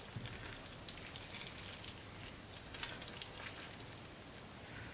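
Faint wet crackling and bubbling from a pan of hot meatball, pea and potato stew as it is stirred with a silicone spatula: a soft steady hiss with scattered small pops.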